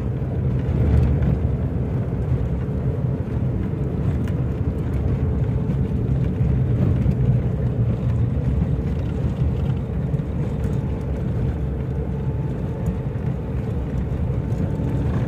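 Steady engine and tyre rumble of a vehicle driving along a sandy track, heard from inside the cabin.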